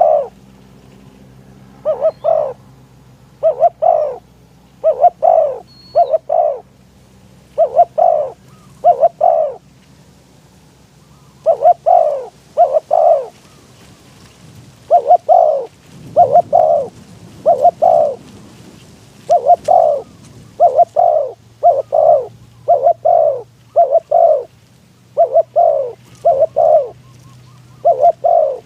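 Spotted dove cooing over and over: short hoarse coos in quick pairs and triplets, a group about every second or two, with a few short pauses.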